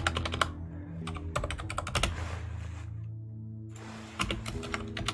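Computer keyboard typing in three short bursts of quick keystrokes, with a pause in the middle, over soft background music with low held notes.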